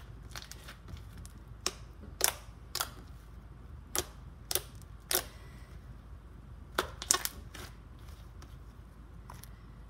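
Pink slime being squeezed and folded by hand, giving about ten sharp clicks and pops at irregular intervals, which die away after about seven and a half seconds.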